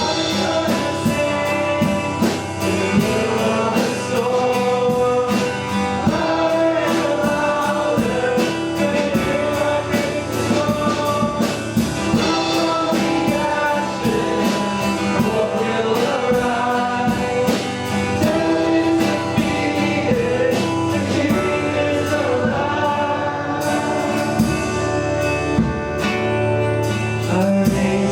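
Worship band playing a song with guitar and drums under a steady beat, with voices singing along.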